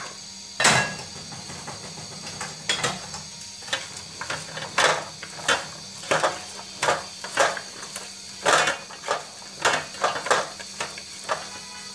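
Cut vegetable stems and potato pieces being stirred through spice paste in a metal pot, a quick run of rustling, scraping strokes about two a second over a steady faint sizzle.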